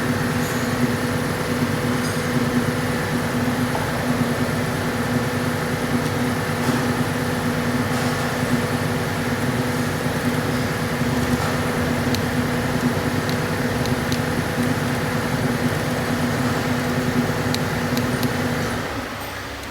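A motor running steadily with an even hum, with a few faint light clicks over it; it stops shortly before the end.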